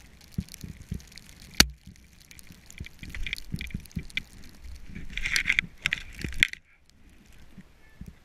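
Snowboard carving through powder in a tree glade, picked up by a camera on the rider: hissing and scraping of the board over the snow, with scattered clicks and knocks. A single sharp crack about one and a half seconds in, and a louder stretch of hiss around five to six seconds that cuts off suddenly.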